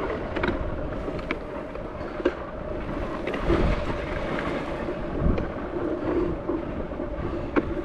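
A vehicle engine running with a steady hum, with wind on the microphone and a few light knocks scattered through.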